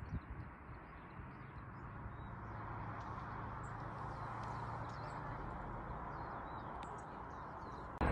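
Small birds in plum trees, chirping faintly in short scattered calls over a steady background rumble that grows a little louder a couple of seconds in.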